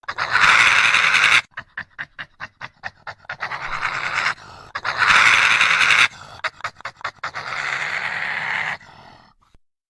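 Dinosaur call sound effect: three long, harsh, noisy calls, with runs of short quick pulses, about five a second, between them.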